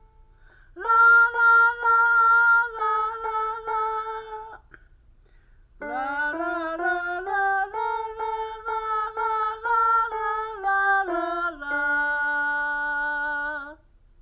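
Electronic keyboard playing a short phrase of steady single notes. After a gap of about a second, a longer melodic phrase follows, ending on a long held low note.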